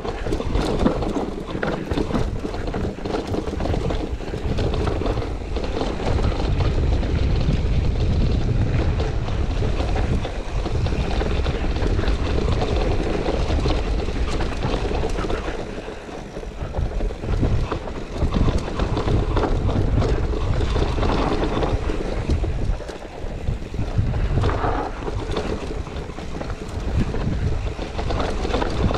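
Enduro mountain bike descending a rocky, technical trail: tyres rolling over loose rock and the bike rattling with many short knocks, under steady wind noise on the action camera's microphone.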